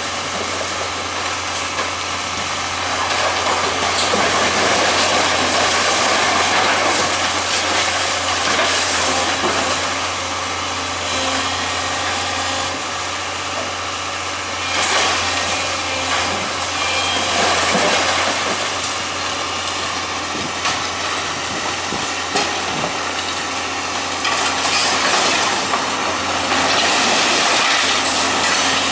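Demolition machinery at work: a heavy engine running with a steady hum under continuous rough clattering noise that swells and eases, with a few sharp knocks.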